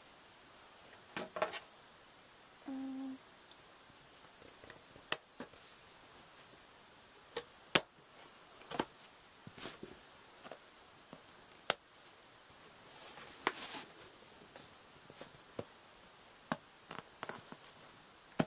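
Hands handling a doll and its packaging in a cardboard box: scattered sharp clicks and taps, with a stretch of rustling a little past the middle. A short low hum sounds about three seconds in.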